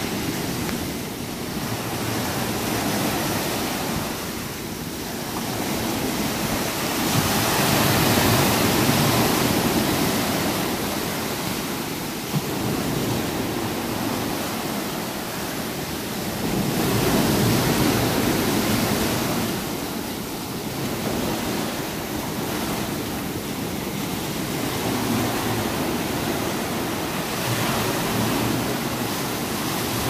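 Sea surf breaking and washing in foam around the concrete pilings of a pier, a steady rushing wash that swells louder about every ten seconds as each wave comes in.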